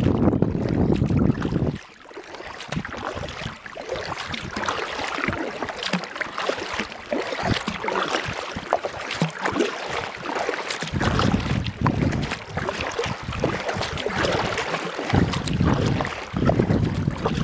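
Water splashing and trickling from kayak paddle strokes, full of small irregular drips and ticks. Wind buffets the microphone with a low rumble in the first two seconds and again through the second half.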